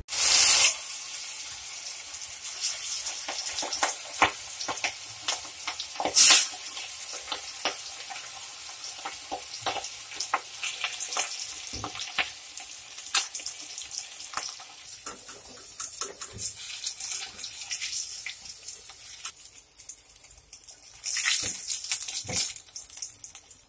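Fish steaks deep-frying in hot oil in a kadai: steady sizzling with many sharp crackling pops. The sizzle surges loudly at the start, again about six seconds in, and once more near the end.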